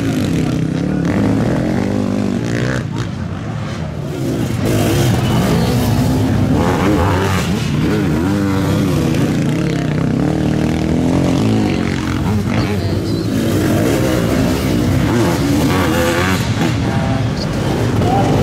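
Sidecarcross outfits' motorcycle engines revving hard as the outfits pass one after another, the pitch repeatedly rising and falling with throttle and gear changes.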